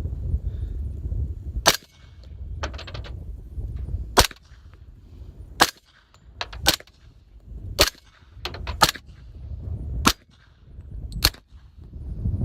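Suppressed gunshots from CMMG Guard carbines in .45 ACP and 9mm, firing subsonic reloads through Rugged Obsidian 45 and Obsidian 9 suppressors in short configuration. There are about eight sharp cracks, roughly one a second, with a low rumble between them.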